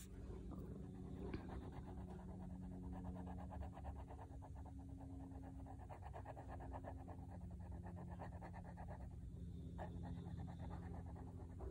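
Fineliner pen tip scratching on paper in quick, short back-and-forth strokes while colouring in an area, over a low steady hum.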